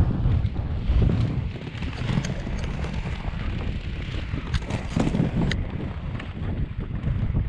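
Tri-wheel inline skate wheels rolling over paving slabs: a steady rough rumble with a few sharp clacks, and wind buffeting the microphone.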